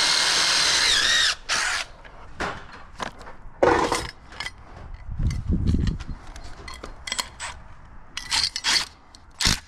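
Power drill with a masonry bit boring a hole into masonry for a strap, running for just over a second and stopping, with a brief second burst right after. Then scattered knocks and clatters.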